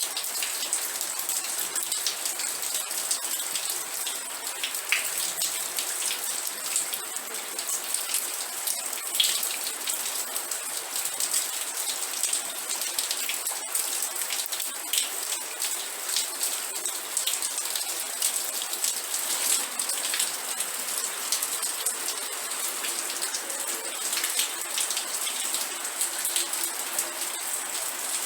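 Steady rain falling, a close, even hiss with many individual drops ticking sharply on a surface.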